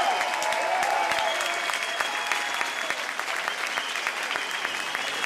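Audience applauding steadily, a dense patter of many hands clapping, with a few shouts from the crowd mixed in.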